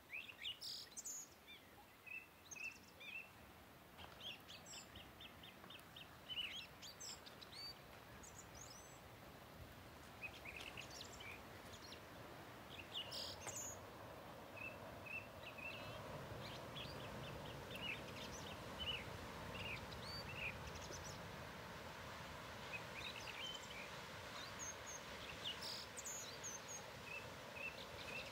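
Birds chirping and trilling in short scattered calls over a faint, steady rush of surf breaking at the foot of the cliffs. The surf grows louder from about halfway through.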